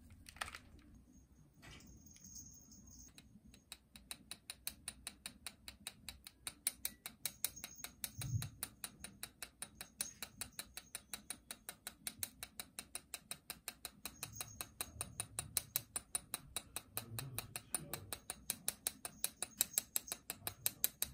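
Small metal mesh sieve rattling as powdered sugar is sifted through it: a quick, steady run of light ticks, several a second, starting about four seconds in.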